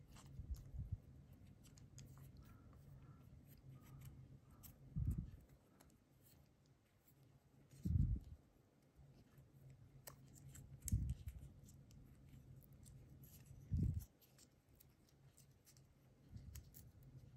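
Small handling sounds of vinyl tape being wound off its roll around a wooden stick and bent wire: faint clicks and rustles, with a dull low thump about every three seconds.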